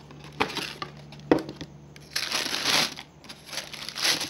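Cardboard shoebox being handled and opened, with two sharp knocks in the first second and a half, then tissue paper crinkling in two longer bouts as the packing around the sandals is moved.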